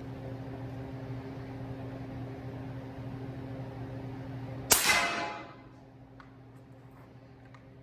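A single suppressed shot from a short-barrelled 300 Blackout bolt-action rifle firing a 220-grain subsonic round, about two-thirds of the way in, with a brief ringing tail. A steady low hum runs underneath.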